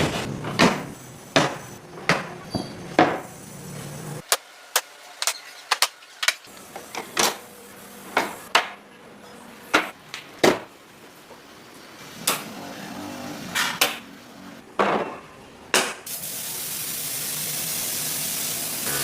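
Irregular sharp knocks and taps of hand tools working wood, like hammering and chopping, with short gaps between strikes. About sixteen seconds in the knocking stops and a steady hiss takes over.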